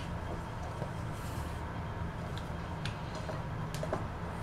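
Steady low room hum with a few faint, light clicks and taps from hands shaping and flattening a ball of naan dough on a ceramic plate.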